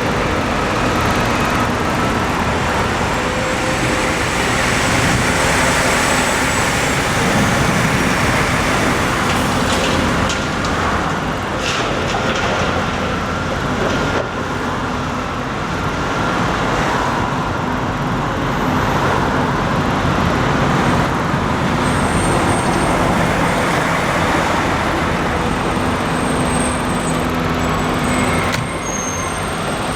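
Steady running of heavy diesel vehicles amid road traffic, with faint high whistling tones coming and going in the last third.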